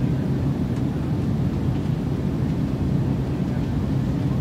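Twin-engine jet airliner on final approach with landing gear down: a steady low engine rumble.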